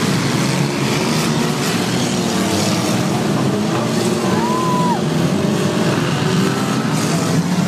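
Engines of several compact-class demolition derby cars running and revving together, their exhaust notes overlapping in a steady, dense din.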